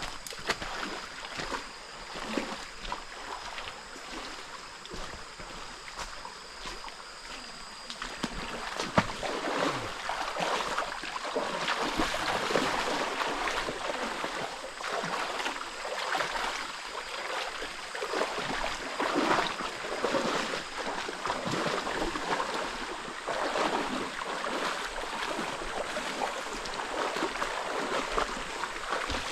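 Water splashing and running, with irregular sloshes that grow louder about eight seconds in.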